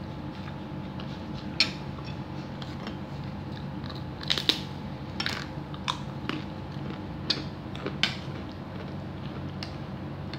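Someone eating chicken noodle soup: chewing and lip-smacking, with a few sharp, scattered clicks and smacks over a steady low hum.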